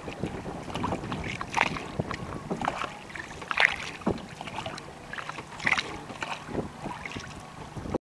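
A small boat moving on the water, with splashes and knocks; the strongest come about every two seconds, like paddle strokes.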